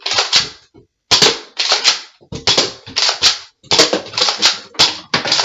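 Nerf foam-dart blaster fired in quick succession: a string of a dozen or so sharp pops, about two to three a second.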